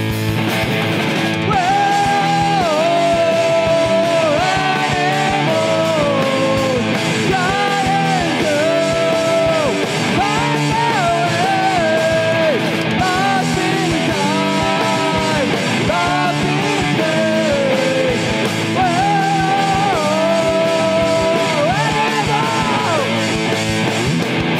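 Alternative rock band playing live: distorted electric guitar and a full drum kit, with a melody line on top that glides between long held notes.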